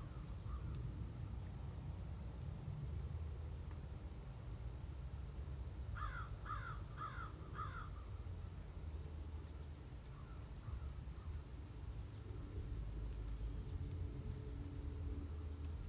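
Outdoor insect chorus, a steady high trill of crickets with short breaks. Over it a crow caws four times in quick succession about six seconds in, with fainter calls elsewhere and faint high bird chirps later on. A low rumble runs underneath.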